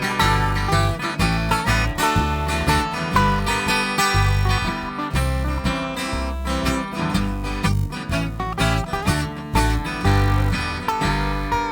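Instrumental break from an acoustic string band playing a country-blues tune: strummed acoustic guitar with a steady pulsing bass line and a plucked lead melody.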